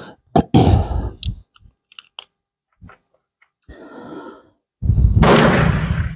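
A man breathing out heavily: a short exhale about half a second in and a long, louder sighing exhale near the end. Between them come a few light clicks of .32 pistol cartridges being handled.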